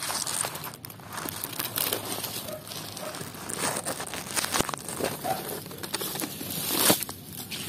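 Dry leaves and plant stems rustling and crinkling close to the microphone in irregular crackles, rising to a louder rustle near the end.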